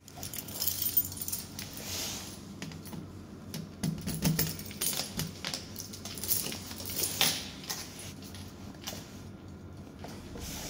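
A bunch of keys jangling and clinking against the elevator's metal control panel while a key is fitted into the priority-service (Vorzug) key switch, giving many small sharp clicks throughout.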